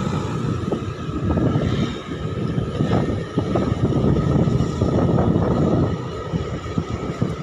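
Motorcycle running at riding speed, with an irregular low rumble of wind buffeting the microphone.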